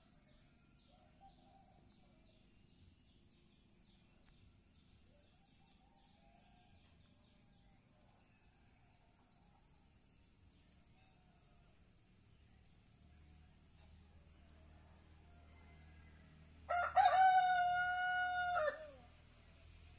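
Rooster crowing once near the end, a short first note and then a longer held call about two seconds in all. Before it, only faint outdoor background.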